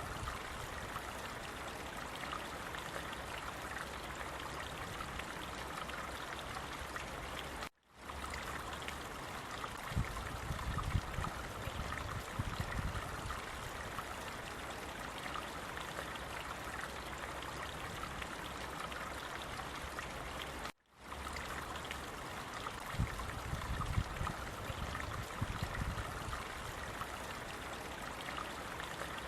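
Running water flowing steadily, a continuous rushing with some trickling. It cuts out for a split second twice, about 8 s and 21 s in, with bouts of low rumble after each.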